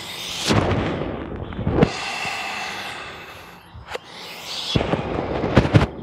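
Hard breathing and rustling from a person doing repeated crunch reps, swelling twice in time with the reps, with a few short thumps as the body and yoga block move on the ground.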